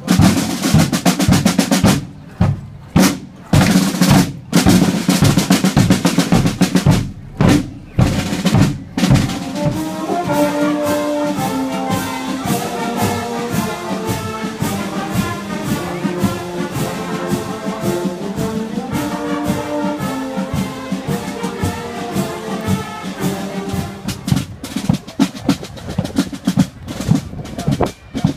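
Marching drum and brass band (drumfanfare) playing on the move. The first several seconds are a drum cadence of snare and bass drums with short breaks. About ten seconds in, brass instruments take up a melody over the drumming, and near the end the drums play alone again.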